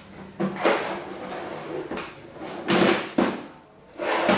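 Objects being handled and moved about: a few short clattering and scraping knocks, the loudest around the middle and near the end.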